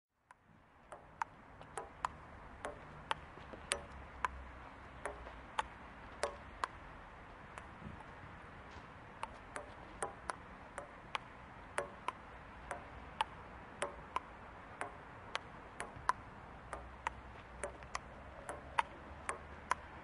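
Table tennis rally: a ping-pong ball clicking sharply off the table and paddles about twice a second, the hits varying in loudness, over steady low background rumble.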